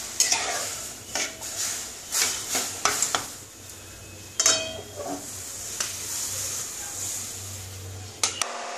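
A spatula stirring and scraping roasted moong dal and water in a metal kadai, with repeated clinks against the pan over a faint sizzling hiss. Near the end come a couple of knocks as the pan is moved off the gas burner.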